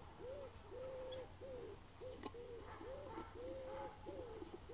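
A pigeon or dove cooing: a steady run of low, arched notes, about two a second.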